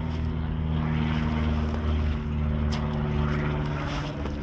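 A steady, low engine drone with an even hum, and a single sharp click about halfway through.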